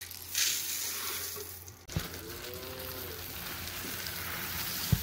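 Calf feed pellets poured from a plastic container into a galvanized steel pail, a dry rushing rattle for about the first two seconds, then a softer steady rustle of pellets.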